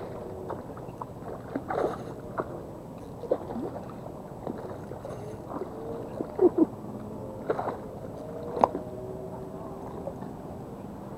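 Scattered small clicks and knocks over steady background noise, with two sharper knocks about six and a half and eight and a half seconds in.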